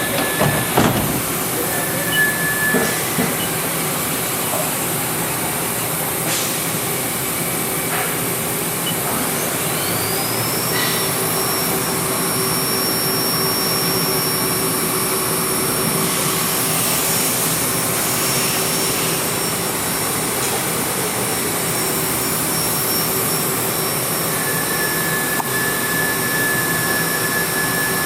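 Haas VF-3 vertical machining center running its spindle: a steady mechanical hum and hiss with a high whine. About ten seconds in, the whine rises and then holds at the higher pitch.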